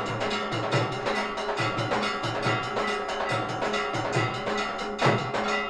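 Temple aarti percussion: bells ringing in a fast, continuous clatter over a steady drum beat, with one louder strike about five seconds in that rings on.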